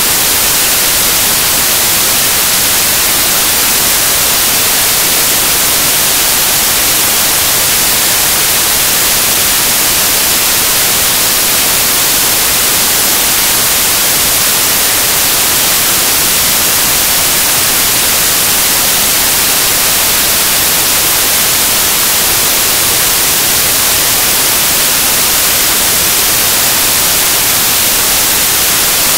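Loud, steady static hiss like white noise, strongest in the treble, with no change and no other sound in it.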